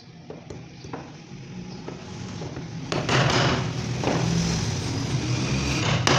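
A steady low hum with a few light clicks, then from about three seconds in louder scraping and rustling bursts of handling noise, like parts being worked on by hand.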